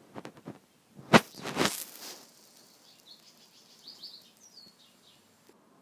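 Paper pages of a printed manual being handled and turned: a sharp snap about a second in, then a short rustle. Faint high chirps follow.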